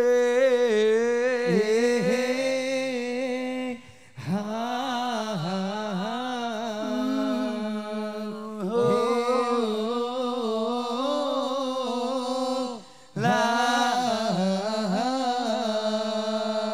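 A man singing long, wavering melismatic phrases with held notes into a microphone. The singing comes in four phrases, with short breaks about four, nine and thirteen seconds in.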